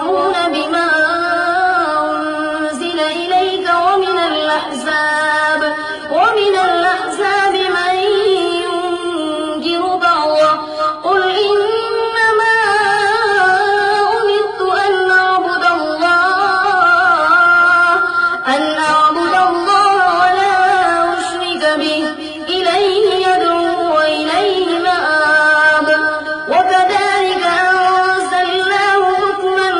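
A single male voice reciting the Quran in a melodic chanting style, drawing out long ornamented notes that waver in pitch, in phrases several seconds long with short breaks between them.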